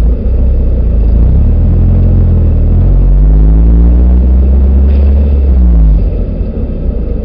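A motor vehicle's engine accelerating under a heavy low rumble, its pitch rising steadily for several seconds. About six seconds in the pitch falls away quickly and the sound gets quieter.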